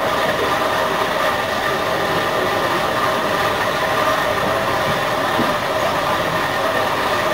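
A loud, steady mechanical drone with several unchanging tones over a noisy hiss, which cuts in suddenly.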